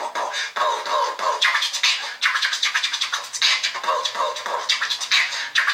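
Beatboxing: a performer imitating DJ record scratches with the mouth in quick, choppy strokes, with almost no bass under them.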